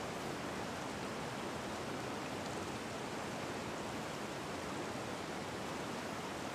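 Steady rain falling, an even hiss with no breaks or distinct drops.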